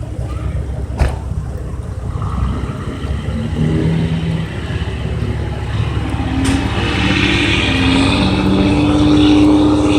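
A large vehicle engine running steadily, growing louder and higher in pitch over the last few seconds. A sharp click about a second in.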